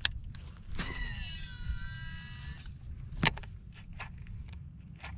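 A Shimano DC baitcasting reel being cast. There is a click, then the electronic brake whines for about two seconds, its pitch gliding down as the spool slows. A sharp click comes about three seconds in.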